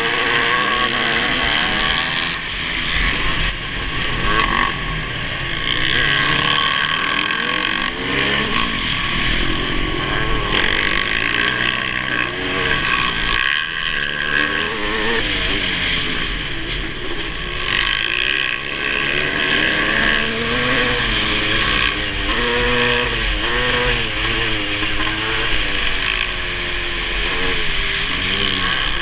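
Kawasaki KX500's 500 cc single-cylinder two-stroke engine being ridden hard, revving up and down over and over, its pitch climbing and dropping many times, over a steady rushing noise.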